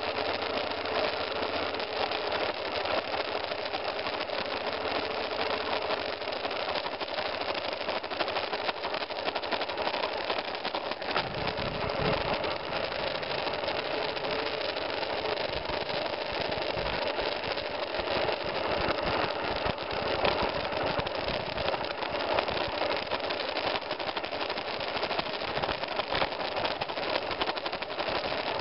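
Single-cylinder engine of a BMW F 650 GS Dakar running steadily as the motorcycle rides slowly along a muddy dirt trail, with a stretch of heavy low rumble about eleven seconds in.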